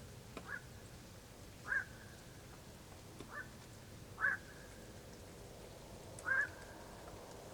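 A bird giving short, harsh single calls, about five at irregular intervals.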